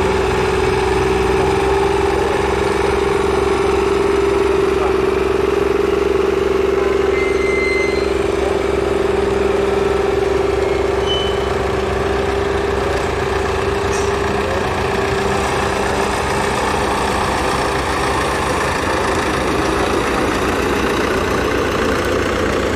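Vintage tractor engines running steadily as the tractors drive past, with a strong steady hum that fades away about two-thirds of the way through.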